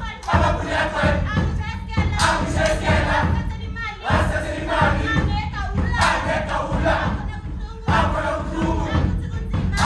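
A group of voices chanting a song together in loud phrases that restart about every two seconds, with a heavy low sound underneath.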